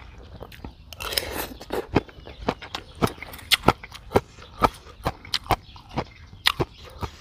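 Close-up eating of green papaya salad: chewing and crunching with sharp wet mouth clicks, a few each second, and a denser crunch about a second in.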